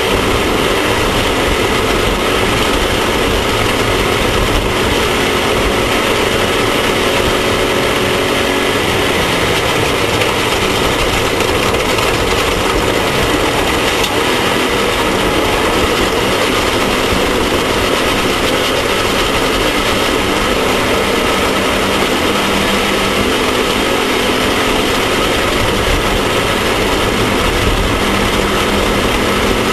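Off-road race vehicle's engine running continuously at a steady loud level, mixed with a dense rush of noise.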